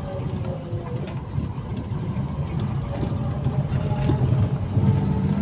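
Steady low rumble of a vehicle driving along a dirt road, from engine and road noise, with a faint whine above it.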